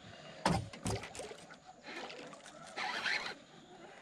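Baitcasting reel being cranked to bring in a hooked snapper, with scattered sharp clicks and knocks and a short rustling burst near the end.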